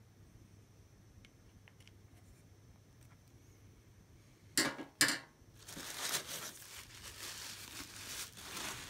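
Two sharp knocks about halfway through, then thin white plastic wrapping crinkling and rustling for about three seconds as it is pulled out of a cardboard box packed with foam packing peanuts.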